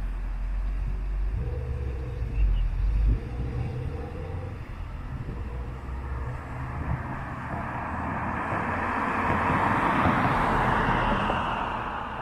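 Outdoor traffic ambience with a low rumble. The noise of a passing motor vehicle swells from about eight seconds in, is loudest near ten seconds, and fades away.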